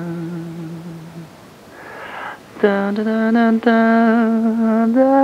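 A voice humming a melody, recorded on a microcassette. A low held note fades out, a breath is drawn about two seconds in, then a longer, louder note is held with a slight wavering and a small lift near the end.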